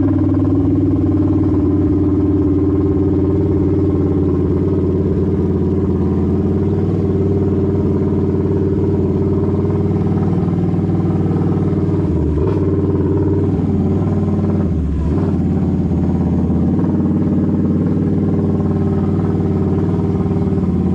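Can-Am Renegade XMR 1000 ATV's V-twin engine, fitted with an aftermarket megaphone exhaust, running steadily at an even speed with little change in pitch. Its low note dips briefly twice around the middle.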